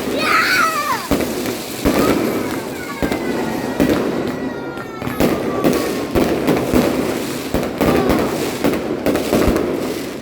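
Fireworks going off in rapid, continuous succession: repeated bangs over dense crackling, with a thin falling whistle through the middle.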